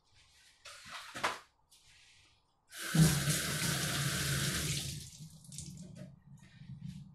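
Water running from a tap into a sink: it comes on about three seconds in, runs strongly for about two seconds, then eases to a low rumble. A few short rustles and knocks come before it.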